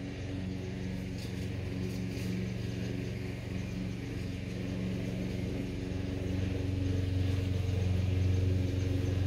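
A steady, low engine drone at a constant pitch, growing gradually louder over the last few seconds.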